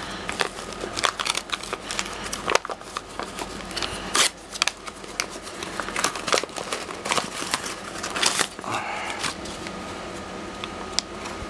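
Package being opened and handled by hand: crinkling and tearing of packaging with many sharp clicks and rustles, settling down in the last couple of seconds.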